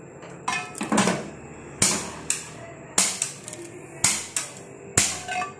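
Handheld spark gas lighter clicking repeatedly at a gas stove burner to light the flame, about eight sharp clicks at uneven intervals.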